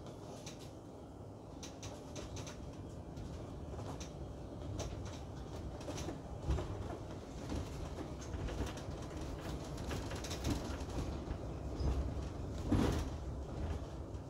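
Inside a moving bus: a steady low rumble of engine and road, with light rattles and clicks from the cabin fittings throughout and one louder knock near the end.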